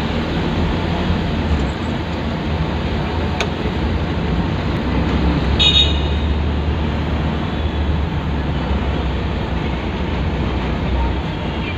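Steady low road and engine rumble heard from inside a car driving through city traffic, with a single click a few seconds in and a brief high-pitched tone near the middle.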